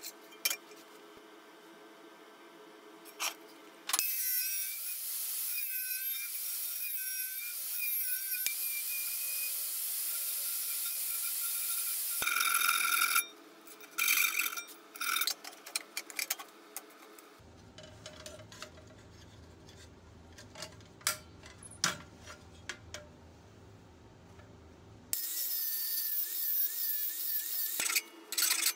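Power tools working sheet steel: a harsh cutting hiss with a wavering whine, once from about four to twelve seconds in and again near the end. Between them come knocks and clatters of metal, then a low steady machine hum.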